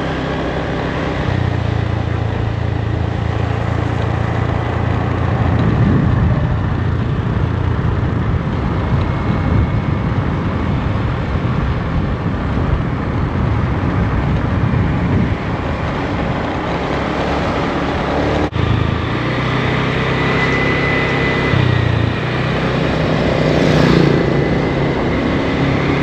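Small scooter engine running steadily while riding on the road, its note shifting up and down a few times.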